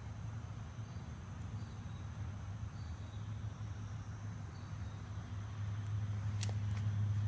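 Night-time outdoor ambience: a steady low hum that grows louder near the end, with a steady thin high tone and a few faint insect chirps. A few sharp clicks come near the end.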